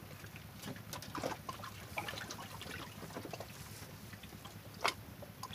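Faint water trickling and small splashes with scattered light clicks and taps, and one sharper click near the end.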